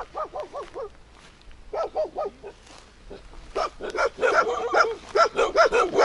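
Dogs barking at an approaching person. There is a quick run of short barks at the start, another short run about two seconds in, then louder, denser barking over the last couple of seconds.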